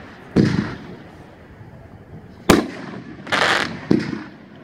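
Winda 'Captain Jackson' 500 gram fireworks cake firing single shots. A dull launch thump comes shortly after the start. About two seconds later a sharp aerial burst cracks, then a brief hiss, and another launch thump comes near the end.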